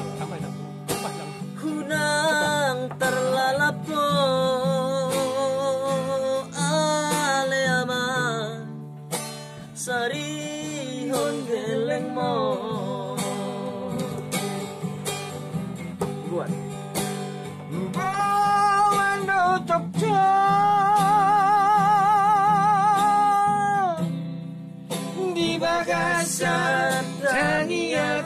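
A man singing a Batak song in a high voice, accompanying himself on a strummed acoustic guitar. The voice has strong vibrato and holds one long, wavering note for several seconds about two-thirds of the way through.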